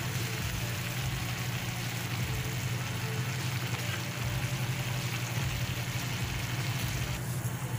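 A stainless pan of pork in shrimp paste and vinegar sauce sizzling and bubbling on the stove, coming up to a boil, stirred with a spatula at first. A steady low hum runs underneath.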